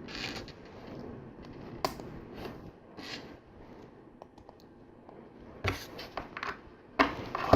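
LEGO pieces being handled and snapped together: a soft rustle of plastic parts with a few sharp clicks, the loudest about two seconds in and a pair near the end.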